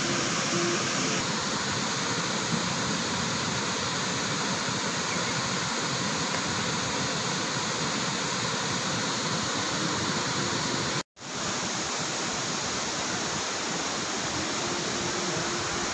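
Fast river rapids below a waterfall: a steady rush of water, cut off for an instant about eleven seconds in.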